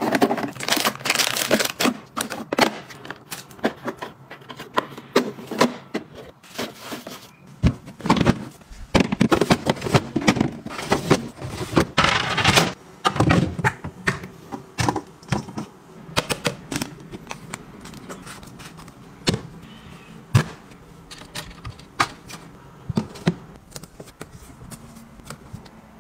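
Hands handling white plastic storage drawers and nested plastic mixing bowls: a run of light plastic knocks, clicks and scrapes, with denser scraping and rustling partway through.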